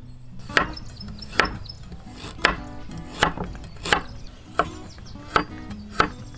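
Chef's knife slicing fresh lemongrass, galangal and turmeric on a wooden cutting board: a sharp knock of the blade on the wood with each cut, about every three-quarters of a second, eight cuts in all.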